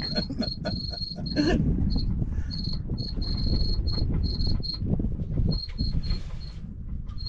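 Fish finder's fish alarm beeping: one high-pitched electronic tone that chirps on and off in short and longer runs, dropping out for a moment near the end, set off by sonar returns. A low rumble runs underneath.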